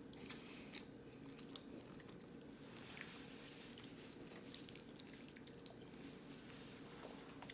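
Faint chewing and mouth sounds of someone eating, with scattered small wet clicks.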